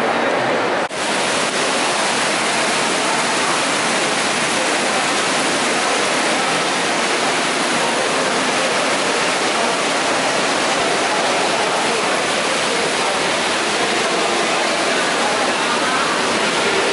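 Indoor fountain water splashing into its pool: a steady, even rushing noise, with faint crowd chatter beneath it. The sound dips briefly about a second in.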